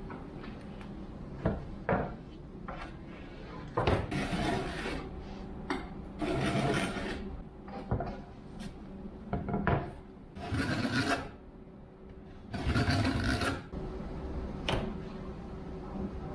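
A hand tool rubbing or rasping across wood in four strokes of about a second each, with light knocks between them.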